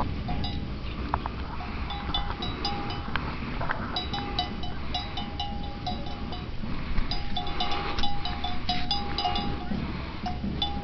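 Small bells clanking in irregular clusters of short ringing strikes at one pitch, over a steady low rumble.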